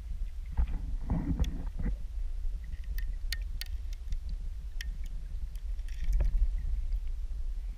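Muffled underwater sound picked up by a GoPro in its waterproof housing: a steady low rumble, a louder patch of noise about a second in, and a scatter of sharp clicks a few seconds in.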